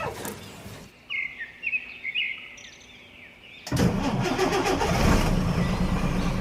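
Birds chirping in short calls, then partway through a loud, rough, steady rumbling noise starts suddenly and continues.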